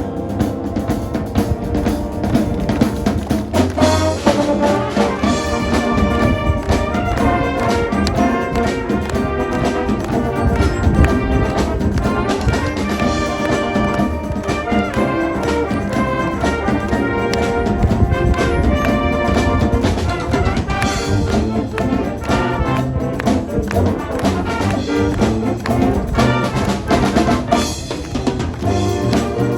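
High-school marching band playing live: trumpets and trombones over a drum kit and marching percussion, loud and continuous.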